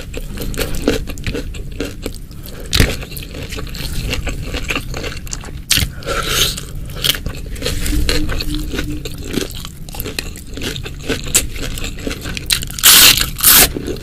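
Close-miked eating: chewing with repeated crunching bites of crisp food, the loudest crunches coming near the end.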